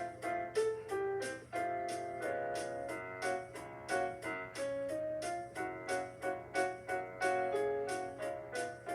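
Credits music played on a piano-like electronic keyboard: a busy run of short melody notes over a steady beat of light ticking percussion.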